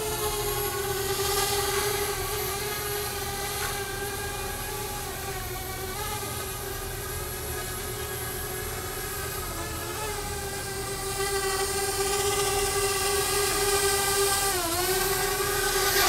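Parrot Bebop quadcopter's motors and propellers whining steadily as it hovers and comes in to land. The whine grows louder over the last few seconds and dips briefly in pitch near the end as the drone settles.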